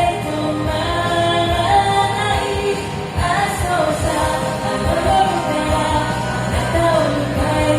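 A song with a sung vocal line over a steady beat and accompaniment.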